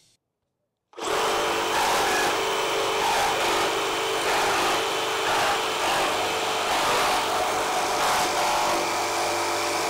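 Makita 40V XGT GRJ02 brushless reciprocating saw, orbital action off, starting about a second in and running steadily as its blade cuts through a 2x8 header of framing lumber and OSB nailed with framing nails.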